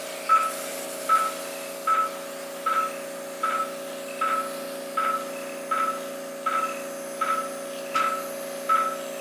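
Operating-room patient monitor (pulse oximeter) beeping once with each heartbeat, a short beep of unchanging pitch about every three-quarters of a second, over a steady low hum of equipment.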